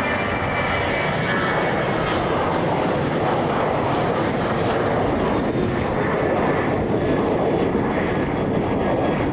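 Jet airliner's engines, a steady noise that grows slightly louder toward the middle of the pass, with a faint high whine in the first couple of seconds.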